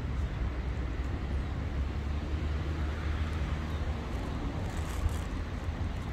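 Steady outdoor ambience: a low rumble under an even hiss, which swells a little around the middle.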